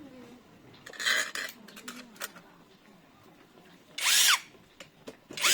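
Handheld power driver run in two short bursts, its motor whirring up, holding briefly and winding down each time, as it drives in screws. A brief clatter of handling comes about a second in.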